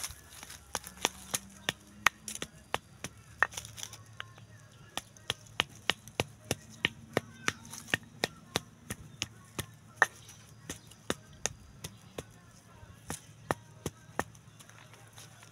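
Stone pestle (ulekan) pounding and crushing peanuts in a stone mortar (cobek) to make rujak seasoning: sharp stone-on-stone knocks, irregular at about two to three a second.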